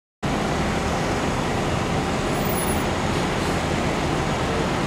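Seagrave Marauder II fire apparatus with their diesel engines running at idle, a steady low rumble that cuts in abruptly.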